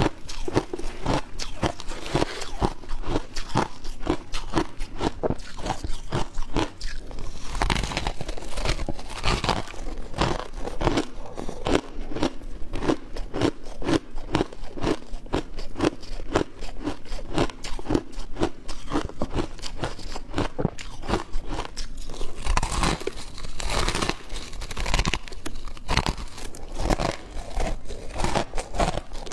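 Shaved ice being bitten and chewed close to a clip-on microphone: many crisp crunches in quick succession, continuing without a break.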